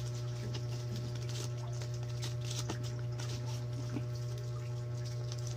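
Paper banknotes rustling and flicking as a stack of bills is counted by hand, over a steady low hum.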